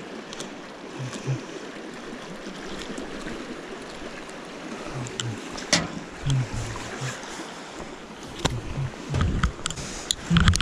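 Steady rush of river water, with scattered sharp clicks and low thumping footsteps that grow louder near the end.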